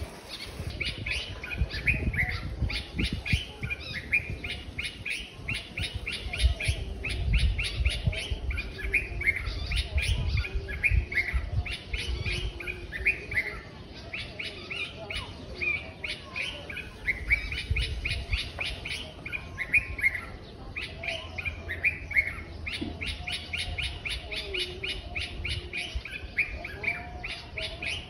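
Small birds chirping busily in rapid trains of short notes mixed with brief falling calls, over a low rumble that swells and fades.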